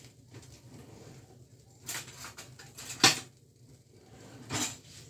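Spatula and utensils scraping and knocking against a glass mixing bowl while glutinous rice batter is stirred to break up its lumps, with scattered clicks about two seconds in and a sharp knock about three seconds in.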